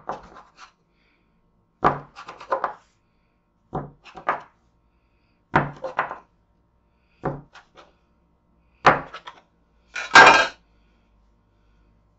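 Metal bench scraper chopping down through soft bread dough and knocking on a wooden counter: six sharp chops about two seconds apart, each with a few small taps after it. About ten seconds in comes a longer, louder scuff.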